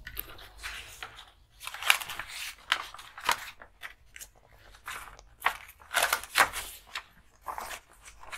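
Paper rustling and crinkling as a large paper envelope and loose paper forms are handled and lifted, in irregular short bursts.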